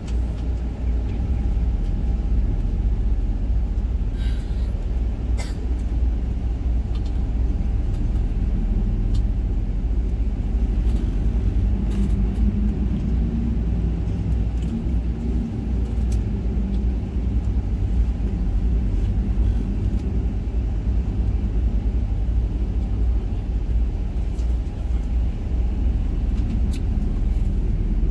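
Intercity bus running at cruising speed, heard from inside the cabin: a steady low rumble of engine and road noise.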